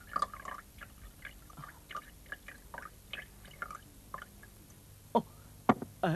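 Rice wine poured from a porcelain ewer into a small porcelain cup, trickling and splashing in short irregular bursts. Near the end come three sharp knocks.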